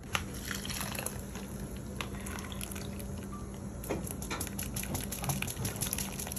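Thick blended chile sauce pouring and dripping through a plastic strainer into a pot of menudo broth, with small crackling splashes, over a steady low hum.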